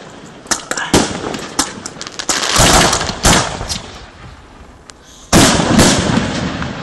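Aerial firework shells bursting in quick succession during a finale: sharp bangs, a quieter spell about four seconds in, then a sudden loud burst just after five seconds followed by a dense run of pops.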